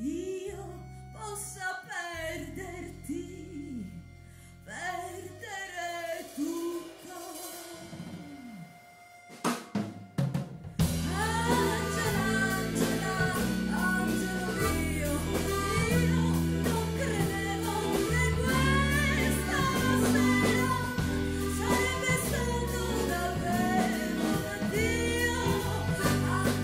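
Live band performance with a female singer: a soft passage of held bass notes and voice, then drums and the full band come in about eleven seconds in and the music gets louder.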